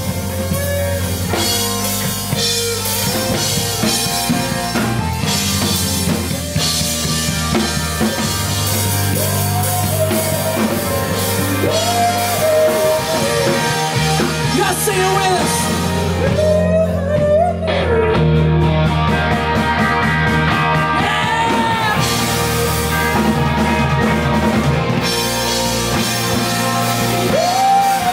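Rock band playing: electric guitars, bass and drum kit under a sung lead vocal. About two-thirds of the way through the cymbals drop out for a few seconds, then the full band comes back in.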